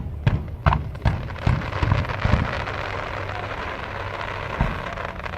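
Aerial fireworks going off: a quick run of booms in the first couple of seconds, then a dense crackling hiss from crackle shells that slowly dies away, with one more boom near the end.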